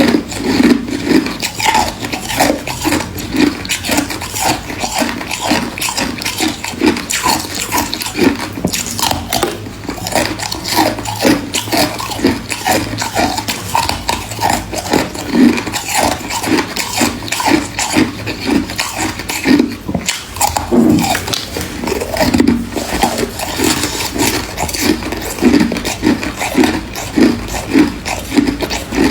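Close-miked crunching and chewing of ice, a steady run of loud crunches at about two a second.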